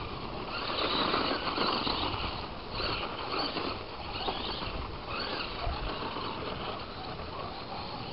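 Tamiya Blackfoot radio-controlled monster truck driving over gravel: its electric motor whirring and its tyres crunching and scattering the gravel, swelling in several surges as it speeds up.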